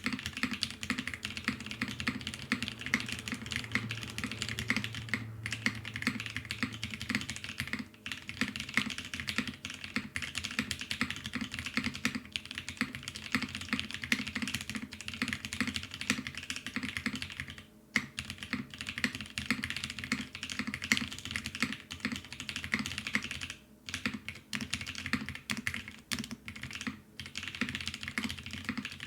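Fast, continuous typing on a mechanical keyboard: ai03 Vega with lubed NK Cream linear switches, polycarbonate plate and GMK keycaps, the keystrokes clacking in quick succession with a few short pauses.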